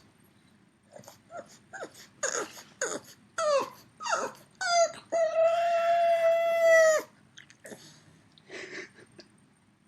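A dog vocalising: a run of short whining yelps that slide down in pitch and grow louder, then one long steady howl held for about two seconds, and a last faint whine near the end.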